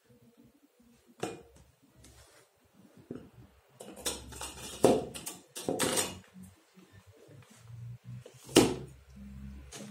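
Knocks and clatter of a stand fan's plastic base and metal pole being handled and fitted together: a few light knocks, a cluster of them around the middle, and a louder knock near the end.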